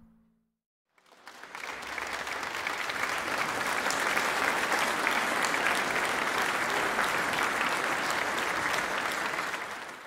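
Light applause from a church congregation: many people clapping, swelling in about a second in, holding steady, and tapering off near the end.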